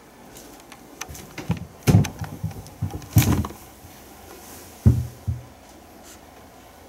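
A cat pawing at a glass sliding door, rattling and knocking the panel, with thumps from the cats shifting and landing on a wooden slatted bench. The loudest knocks come about two and three seconds in, with another thump near five seconds.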